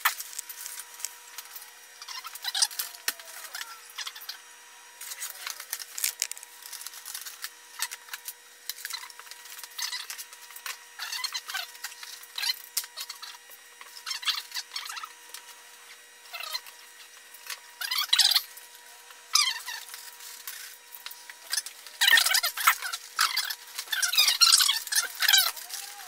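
Hands working over an EPP foam model airplane: irregular rubbing and crinkling as foam parts are pressed together and taped, busiest in a few clusters near the end, over a faint steady tone.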